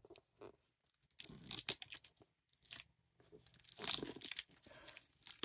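Clear plastic seal sticker being picked at and peeled off a cardboard box flap with a fingernail: a few short scratchy peeling and tearing sounds, the loudest about four seconds in.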